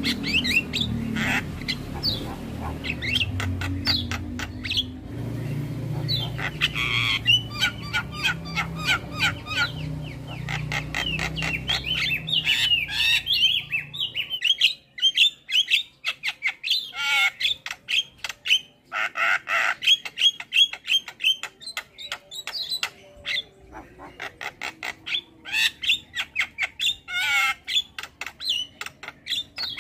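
Starlings chattering in a fast, unbroken run of short harsh squawks and whistled chirps. A low hum sits underneath for the first half and stops about halfway through.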